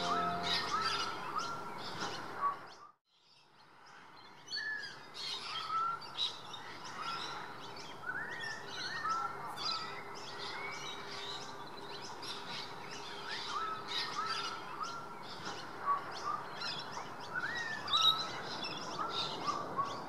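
Several wild birds calling over one another in a park: quick high chirps mixed with a repeated short rising note. The sound drops out briefly about three seconds in, then the calling carries on.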